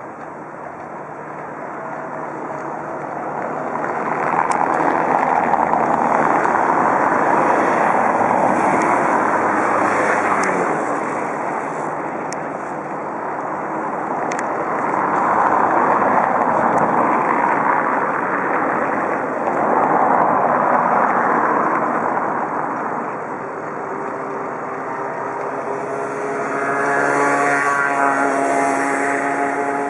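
Rushing vehicle-like noise that swells and fades about four times, as of vehicles passing one after another; near the end a held sound with several steady pitched tones joins it.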